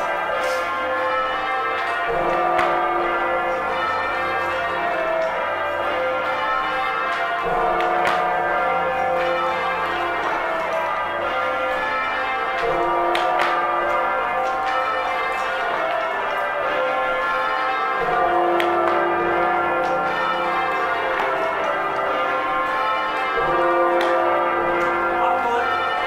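Full-circle change ringing on a ring of 1935 John Taylor & Co. church bells: a continuous overlapping sequence of bell strikes, with a deep low bell sounding about every five seconds.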